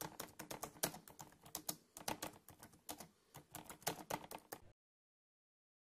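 Typing on a computer keyboard: a quick, uneven run of key clicks that stops about four-fifths of the way through.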